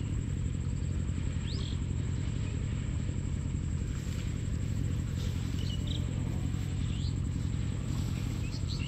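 A steady low hum, like a distant engine, with small birds chirping briefly several times over it.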